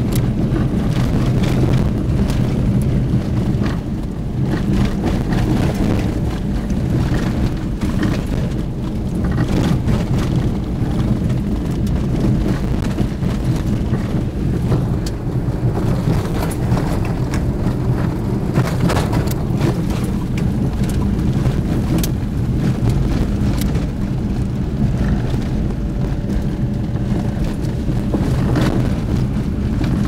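Motor vehicle driving along a rough forest road, heard from inside the cab: a steady low engine and road drone with scattered knocks and rattles as the wheels hit bumps.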